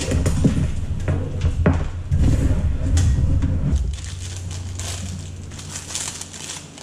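Hands handling computer parts and packaging: plastic crinkling with light clicks and knocks of small metal parts, over a low hum that stops about four seconds in.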